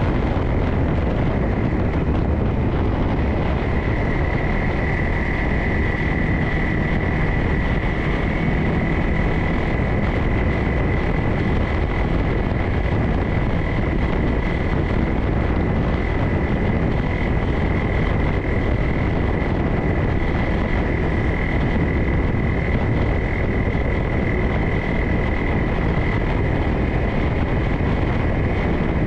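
A vehicle driving along a dirt forest trail: steady engine and tyre rumble with a steady high-pitched whine on top.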